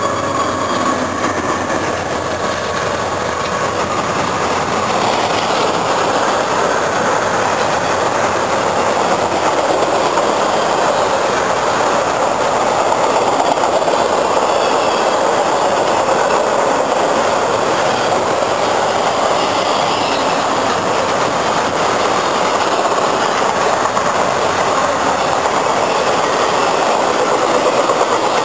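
Intermodal freight train passing close by, its container cars rolling past with a steady noise of wheels on rail. A thin high tone fades out in the first few seconds.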